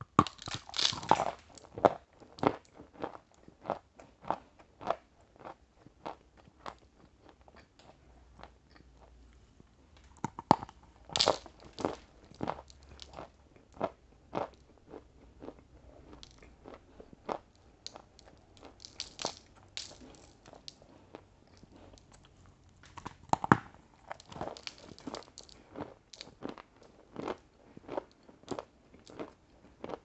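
Close-miked biting and chewing of a crisp-crusted white 'velvet' dessert: loud crunchy bites near the start, about a third of the way in and about three quarters of the way in, with steady crunchy chewing between them.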